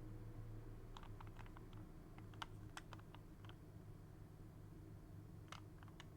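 Faint plastic clicks and clacks of an original Rubik's Cube being turned by hand: a quick run of clicks between about one and three and a half seconds in, then a few more near the end, over a steady low hum.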